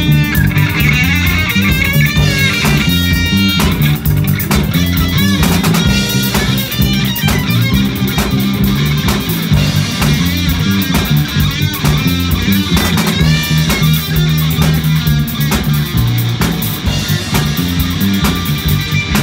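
Live rock band playing electric guitar, bass guitar and drum kit over a steady beat.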